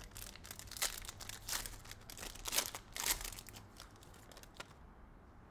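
Foil trading-card pack being torn open and crinkled by hand: a dense run of crackles and rips, loudest about three seconds in, that stops near the end.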